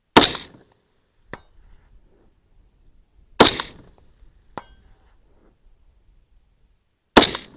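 24-inch-barrel AR-15 rifle firing three shots about three and a half seconds apart, each a sharp crack with a short ringing tail. A much fainter sharp tick follows about a second after each of the first two shots.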